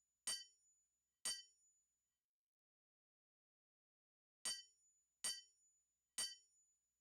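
Hammer blows on metal at an anvil, each a sharp strike with a brief bright ring. There are five blows: two about a second apart, a pause of about three seconds, then three more about a second apart.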